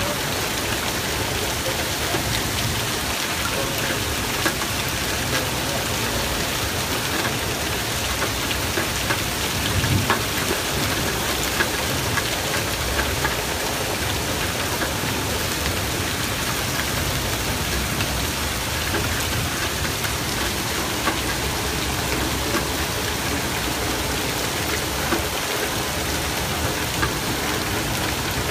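Heavy rain mixed with hail coming down steadily, with scattered sharp ticks of hailstones striking.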